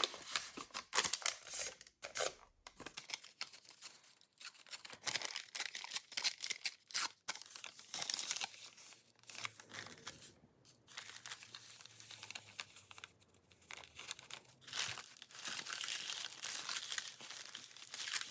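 Papers rustling and crinkling in irregular bursts as they are handled, shuffled and laid in place.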